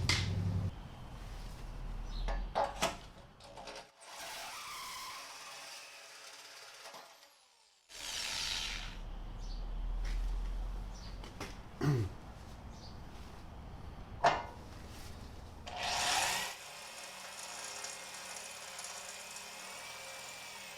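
Power drill boring through 14-gauge cold-rolled steel frame plate in several short runs, with a few sharp knocks between them.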